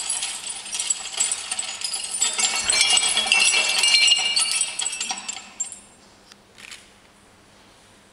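Dense metallic jingling and tinkling, many small high ringing notes at once. It swells to its loudest a few seconds in, fades out after about five and a half seconds, and is followed by a couple of faint clicks.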